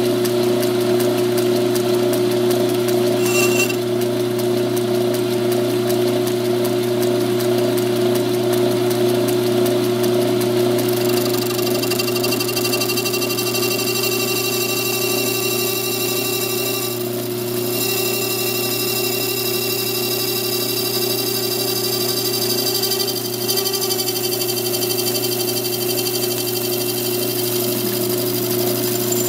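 South Bend lathe running steadily while turning an LED light bulb, a continuous machine hum with several steady tones. The higher part of the sound changes about a third of the way in, with brief dips twice later on.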